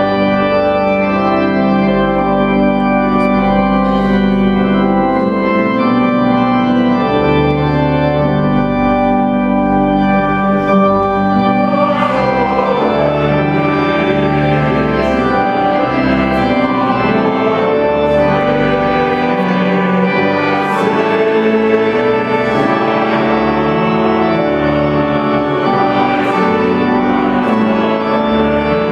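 A choir singing a slow sacred piece in long held chords, with an organ sounding along.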